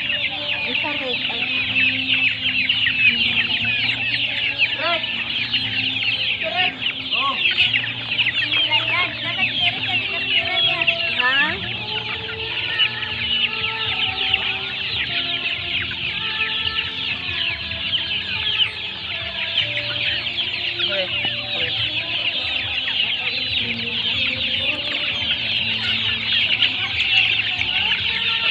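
A flock of young chickens clucking and calling as they crowd round to be fed, over a dense, continuous high chorus of rapid peeping.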